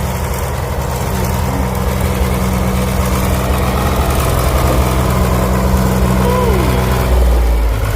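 Tractor engine running steadily during ploughing, its note dropping about seven seconds in.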